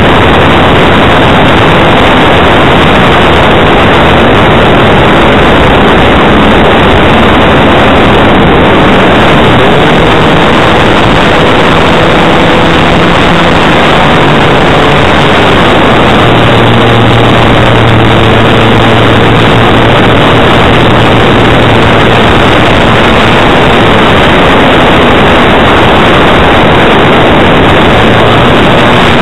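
Loud, distorted rush of air over the microphone of a small camera strapped under the wing of a radio-controlled model plane in flight, with the drone of its motor and propeller underneath, changing pitch now and then.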